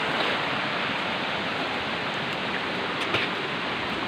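Steady rushing of a rocky mountain stream flowing over stones, with a couple of faint clicks about three seconds in.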